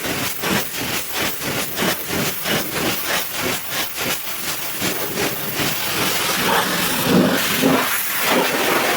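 High-pressure washer jet spraying with a loud hiss. It comes in even pulses, about three a second, through the first half, then turns into a steadier hiss.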